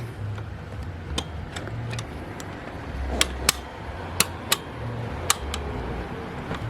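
Metal parts of a car seat's ratcheting height-adjust mechanism clicking and knocking as the bracket is fitted to the seat frame: irregular sharp clicks, about six loud ones, over a low steady hum.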